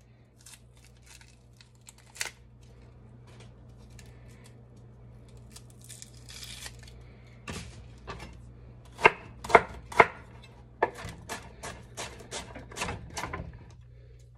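Chef's knife chopping a yellow onion on a wooden cutting board. There are a few light taps and clicks at first, then a run of sharp knife strikes from about halfway through, the loudest ones a couple of seconds later.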